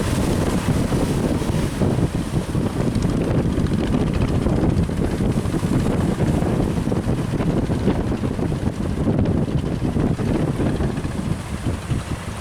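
Strong wind blowing hard across the microphone by the sea, a steady dense noise heaviest in the low end.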